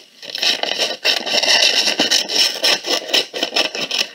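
Scissors cutting through brown kraft paper, a run of repeated snips with a papery crunch.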